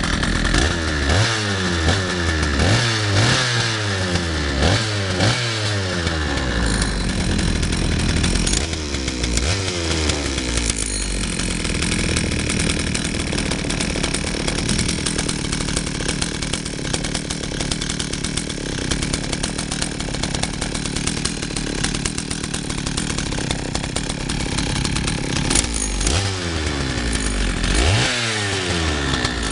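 Husqvarna 61 two-stroke chainsaw engine blipped to high revs about five times in the first six seconds, each time falling back. It then idles steadily and is revved twice more near the end. The saw runs well on its 150 psi compression.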